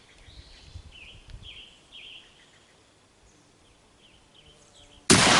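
Small birds chirping, a few short falling chirps, then about five seconds in a rifle fires once, sudden and loud, the loudest sound by far.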